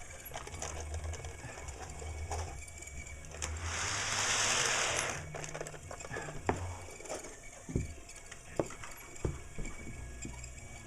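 Electric O gauge model train running, its motor whirring with a steady low hum. A hiss lasting about a second and a half comes about three and a half seconds in, followed by several sharp clicks and knocks.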